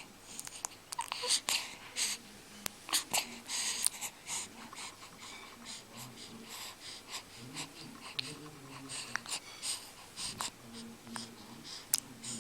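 Baby snuffling: many short, noisy breaths and sniffs through the nose, coming irregularly.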